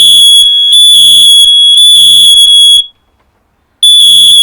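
Several mains interlinked smoke alarms sounding together with a loud, piercing high-pitched beep in three pulses. They stop for about a second and then start again near the end. All the interlinked alarms are going off from one unit being triggered, which shows the interlink works.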